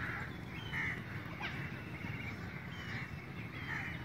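Birds calling outdoors: short calls repeating about once a second, with a few quick chirps, over a steady low rumble.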